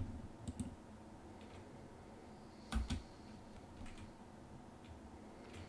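Faint, scattered clicks over a quiet background, with a louder pair of clicks a little under three seconds in.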